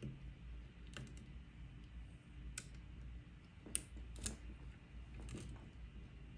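Faint, scattered clicks of a steel lock pick working the pins of a pin-tumbler lock held under light tension, about five in all, the two sharpest a little past the middle, half a second apart.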